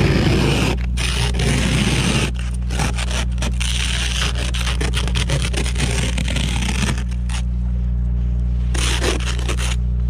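Plastic ice scraper scraping ice and crusted snow off a car's side window in quick repeated strokes, the scraping thinning out after about seven seconds. A steady low hum runs underneath.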